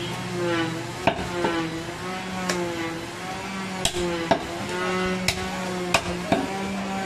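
Irregular sharp knocks of a cleaver chopping goat meat and bone on a chopping block, about eight in seven seconds. Under them run a wavering, drawn-out voice or melody and a steady low hum.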